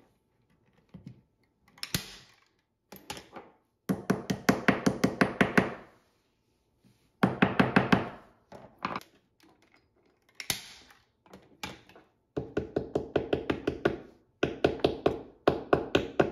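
Quick runs of knocking taps, about eight a second, in several bursts of one to two seconds with short pauses between, from hands working at the edge of a stapled wooden canvas frame.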